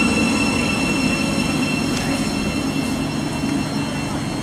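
Train running on the rails, a steady high-pitched whine over a low rumble, slowly fading.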